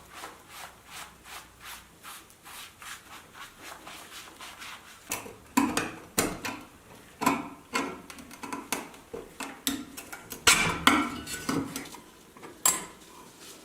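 Repair work on an antique calculator: a run of light, evenly spaced scraping strokes, about two or three a second, then louder irregular clicks and knocks of small hard parts being handled.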